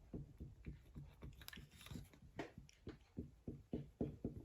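A removed Triumph Spitfire 1500 rear drive housing being turned by hand, giving off faint clicking and crunching from its shaft and bearings. The clicks come unevenly at first, then settle into a quicker, steadier run of about four or five a second near the end.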